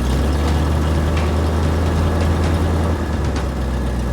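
Motor vehicle engine running steadily, a constant low hum with road noise over it.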